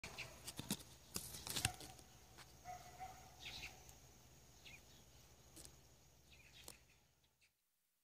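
Faint outdoor garden ambience with scattered short bird chirps and a few sharp clicks, fading out just before the end.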